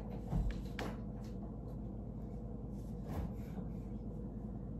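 Soft knocks and rustling from someone searching through kitchen cupboards, with a few light knocks near the start and one about three seconds in, over a steady low room hum.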